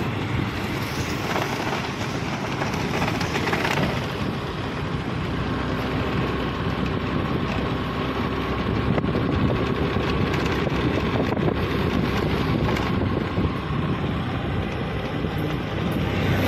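Wind buffeting the microphone on a moving two-wheeler, over the steady hum of its engine and passing road traffic.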